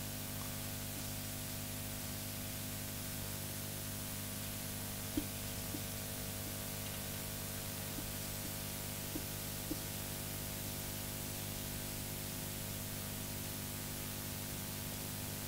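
Steady hiss and electrical hum of the room recording, with a few faint taps of a marker on a whiteboard, the sharpest about a third of the way in.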